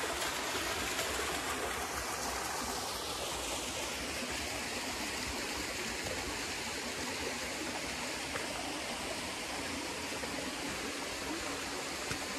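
Steady rush of a mountain torrent spilling over small waterfalls into rock pools.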